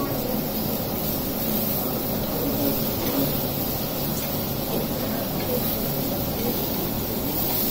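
Steady hiss of stovetop stir-frying: chopped vegetables cooking in an iron kadai on a gas burner as they are stirred with a spatula.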